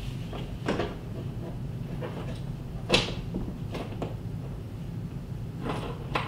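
Handling of a video cable being pulled down out of the wall behind a wall-mounted TV: scattered knocks and scrapes, the loudest about three seconds in, over a steady low hum.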